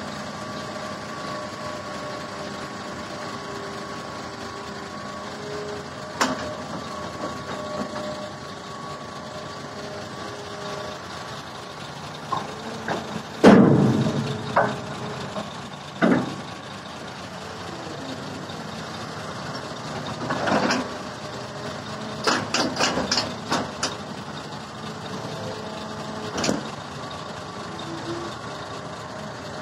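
Hitachi ZX350-5G excavator's diesel engine running steadily while it loads dirt into a dump truck. About halfway through there is a loud heavy thud as a bucketful lands in the truck's steel bed, followed by several single knocks and a quick run of sharp knocks a few seconds later.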